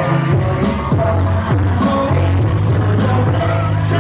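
Live K-pop boy-band song played loud over a concert PA, with vocals over a heavy drum beat and deep bass notes that slide down in pitch.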